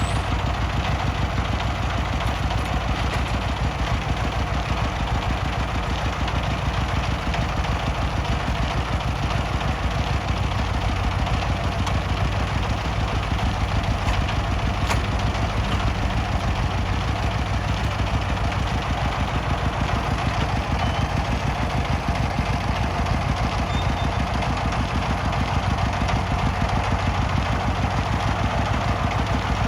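Diesel engine idling steadily, with a fast, even chugging.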